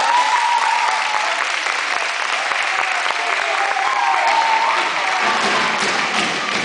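Audience applauding, dense clapping with a few drawn-out shouted cheers over it, as a dance number ends.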